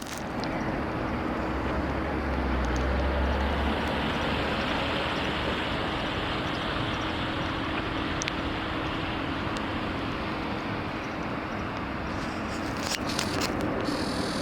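Steady outdoor rushing noise of the kind wind or passing traffic makes, with a low rumble in the first few seconds and a faint steady hum underneath.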